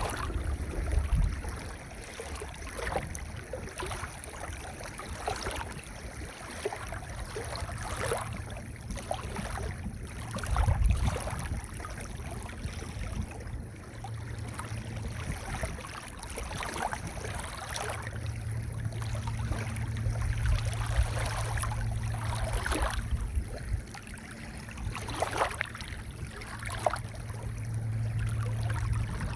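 Waves washing over a pebble beach, swelling and drawing back every few seconds, with a low steady hum underneath, louder in the second half.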